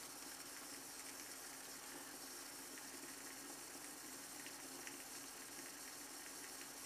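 Faint scraping of a Shavette World shavette's pre-cut half blade cutting lathered stubble in short strokes, starting about halfway through, over a steady background hiss.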